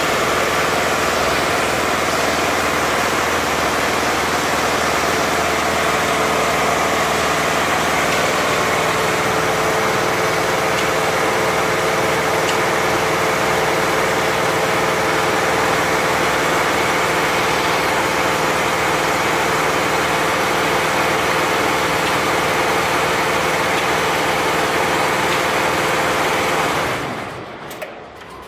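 Richpeace 20-head flat embroidery machine stitching at 1200 RPM: its many heads run together as one dense, even mechanical noise with steady hum tones underneath. The sound falls away sharply near the end.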